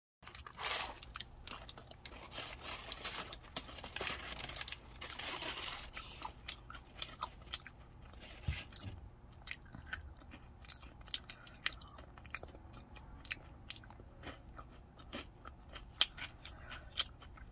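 Close-miked chewing of a soft Subway white chocolate macadamia cookie. Paper wrapper rustles in the first few seconds, then many small sharp mouth clicks follow.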